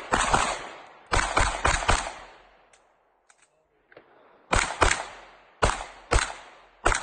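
About ten pistol shots fired in quick strings and pairs: one at the start, four in rapid succession about a second in, then after a short quiet gap a further run of pairs and single shots, each shot decaying quickly.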